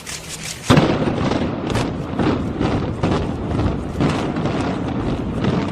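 Building demolition: a sudden loud crash about a second in, then a continuing rumble and clatter of collapsing structure and falling debris.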